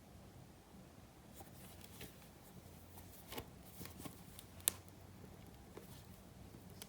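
Faint handling of trading cards and their packaging: soft rustles and a few light clicks, with one sharper click between four and five seconds in, over a low steady hum.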